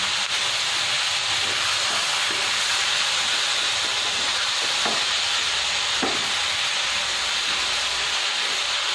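Vegetables and sauces sizzling in a nonstick pan as they are stir-fried with a silicone spatula: a steady hiss.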